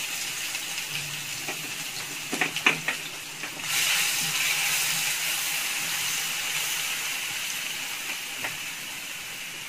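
Chopped shallots sizzling hard in hot sunflower oil, a steady frying hiss. There are a few light knocks about two and a half seconds in, and the sizzle gets louder just before four seconds in as the onions are stirred with a wooden spatula, then slowly eases.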